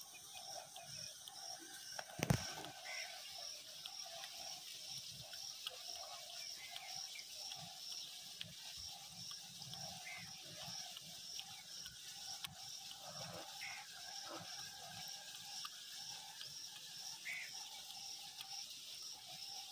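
Faint taps of an Indian peacock's beak picking grain off a paved floor, with one sharper knock about two seconds in. Behind it, a steady high chirping repeats about twice a second.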